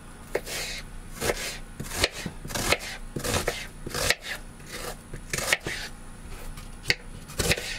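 Kitchen knife slicing an onion into chunks on a plastic cutting board: a run of unevenly spaced cuts, about two a second, each knocking the board.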